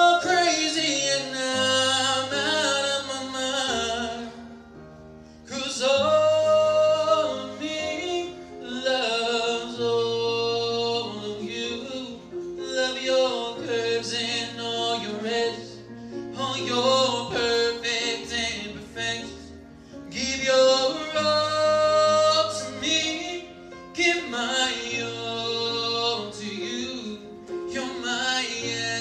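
A man singing into a handheld microphone in long, pitch-bending phrases, with a short breath pause about four seconds in. Underneath, a low sustained accompaniment changes note every couple of seconds.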